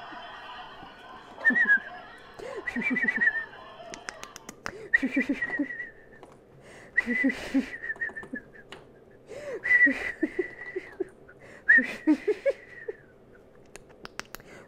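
A person imitating a dolphin: whistles held near one high pitch with short squeaky chirps and clicks, in about six bursts with short gaps between them.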